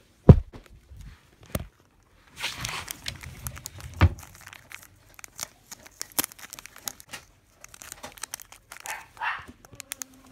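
Thin plastic bag crinkling and rustling as it is handled and pulled open, in many short crackles. A loud bump comes just after the start and another about four seconds in.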